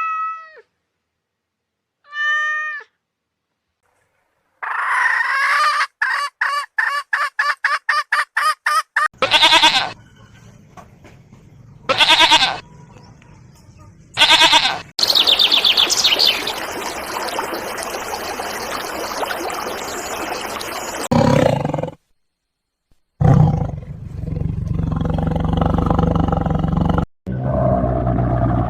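A run of separate animal calls cut one after another: two short pitched cries near the start, a fast string of pulsed calls, then long, loud, rough calls and roars with short gaps between them.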